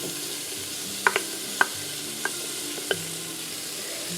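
Chopped onions sizzling steadily in melted butter in an Instant Pot on sauté mode, while a utensil stirs them and clinks against the pot about five times.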